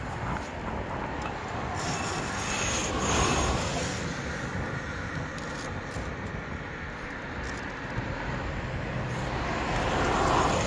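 Road traffic going by: a steady rumble that swells as a vehicle passes about three seconds in and again near the end.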